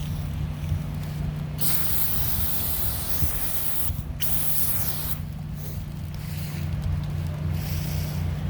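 Soft-wash sprayer hissing as it sprays cleaning solution onto a surface at low pressure, in spurts: it starts about one and a half seconds in, breaks briefly near four seconds, stops around five seconds, and sprays again near the end. A steady low hum runs underneath.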